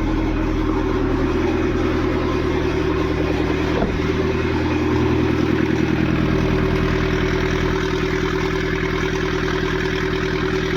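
Mahindra Scorpio S9's diesel engine idling steadily, with a lot of mechanical noise that the mechanic finds unusual. It is running with its faulty DPF differential pressure sensor unplugged.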